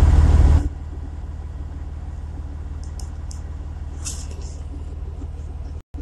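Truck engine idling, heard inside the cab as a steady low rumble. A loud rush of noise cuts off within the first second, and the sound drops out for a moment near the end.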